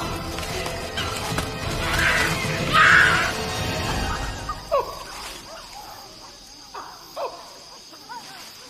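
Background music with loud baboon cries over it, strongest about two to three seconds in; the music then fades and a few short cries falling in pitch follow, the sound of a baboon caught by a leopard.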